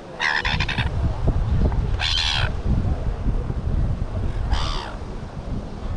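A bird gives three harsh calls, each about half a second long and about two seconds apart, over steady wind and surf noise.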